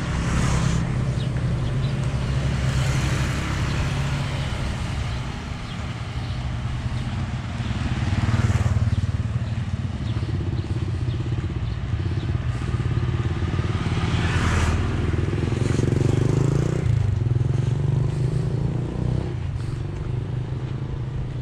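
Motorbikes and scooters passing one after another on a street, each one a brief swell of engine and tyre noise, over a steady low engine hum.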